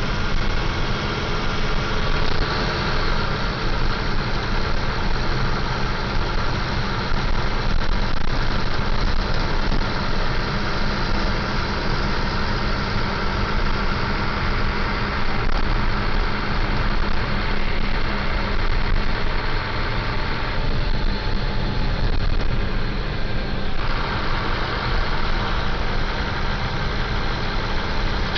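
Scania L94UB bus's diesel engine running steadily, a constant low rumble. The higher part of the sound dips for a few seconds about two-thirds of the way through.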